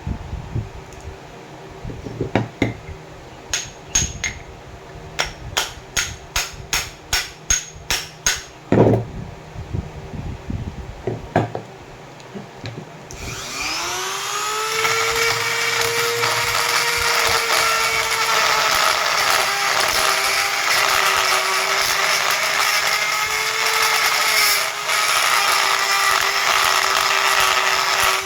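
A run of sharp clicks and knocks, about two a second, then about halfway through a small electric power tool spins up and runs steadily with a whine.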